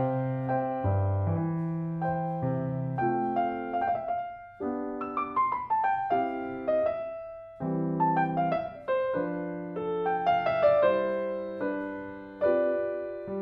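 Piano background music: gentle struck notes and chords, with two quick descending runs in the middle.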